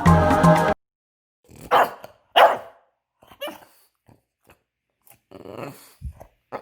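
Background music cuts off under a second in. Then come two short, loud vocal calls a little over half a second apart, a few faint clicks, and a longer rough vocal sound near the end.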